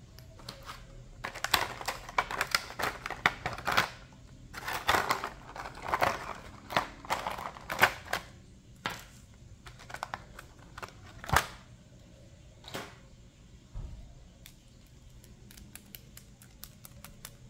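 Clear plastic blister packaging crackling and clicking as toy doll jewellery, a pearl bracelet and rings, is worked out of its tray. The crackling comes in dense runs for the first half, then thins to single sharp clicks. Near the end there are small, faint ticks as the toy rings are handled.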